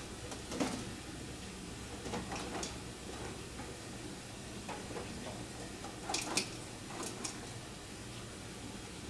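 Scattered light clicks and knocks of parts of a model airplane being handled, loudest in a pair about six seconds in, over a steady low hum.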